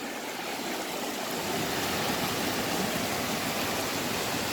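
Cold mountain stream rushing and splashing over rocks, a steady rush of water that grows a little louder about a second and a half in.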